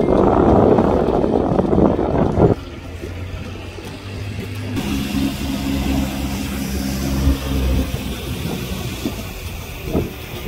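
Riding rice transplanter's engine running steadily, its even drone clearest in the middle. For the first couple of seconds, rough wind buffeting on the microphone covers it.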